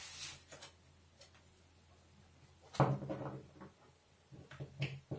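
A tarot deck being shuffled and handled by hand: a few short rustles and light taps, with quiet gaps between them.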